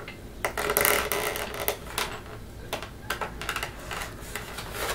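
Pocket knife blade scraping and tapping at the packaging of a cardboard box as it is cut open: a run of irregular clicks and scratches.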